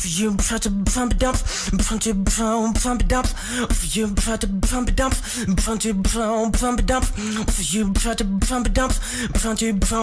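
Beatboxing: a steady fast rhythm of drum-like clicks and hits, layered with a hummed bass tone that wavers in pitch.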